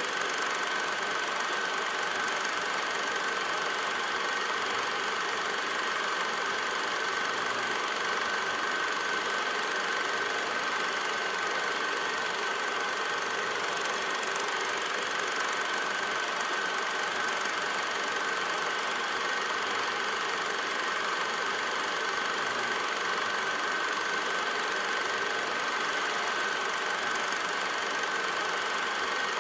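Cinema film projector running steadily: a continuous mechanical whir with a steady high-pitched whine held through it.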